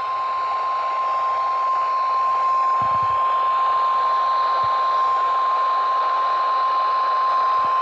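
NOAA Weather Radio warning alarm tone: a single steady high-pitched tone held over radio static, cutting off abruptly near the end. The tone signals that a warning message follows, here a severe thunderstorm warning.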